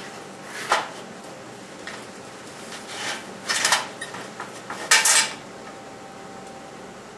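Steel square-tubing leg knocking and scraping against the welded steel frame of an anvil stand as it is set in place: a short clink about a second in, a rattling scrape a little past three seconds, and a louder clank near five seconds.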